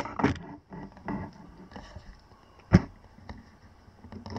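Scattered handling knocks and rustles in a small workshop, with one sharp knock a little under three seconds in and a couple of softer ones near the end.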